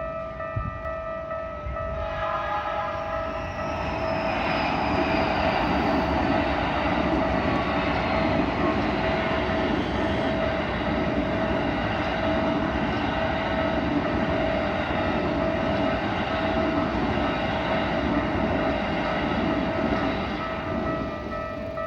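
Japanese level-crossing warning bell dinging in a steady repeated rhythm while a train runs over the crossing. The rumble of the train's wheels on the rails builds about four seconds in and dies away near the end, with a high whine falling in pitch as it arrives.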